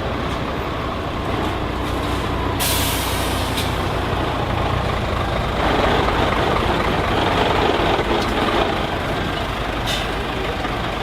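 Heavy truck engine running, with a loud air-brake hiss lasting about a second, starting about two and a half seconds in, and a short, fainter hiss near the end.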